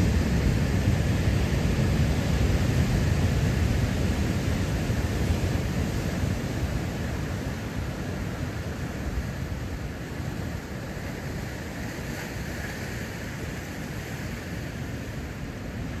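Big surf breaking on a lava-rock shore: a steady, deep rush of whitewater, loudest at the start and easing off over the first ten seconds.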